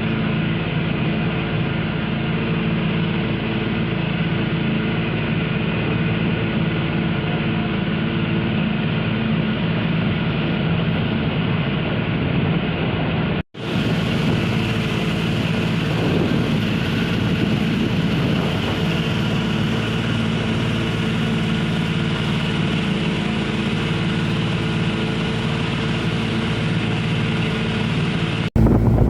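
Motorboat engine running at a steady, unchanging speed: a low, even drone. It breaks off for an instant about 13 seconds in and carries on with more hiss.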